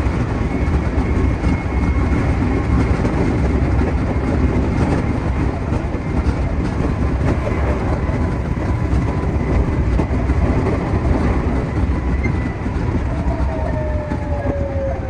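Meitetsu 2200 series electric train running along the track, heard from the driver's cab: a steady rumble of wheels on rail with rail-joint clickety-clack. A faint falling whine comes in about two seconds before the end.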